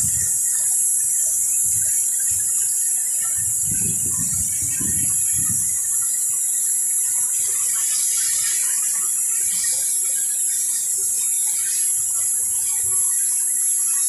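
Steady, loud high-pitched hiss with a thin whistle running through it, and a few dull low thuds around four to six seconds in.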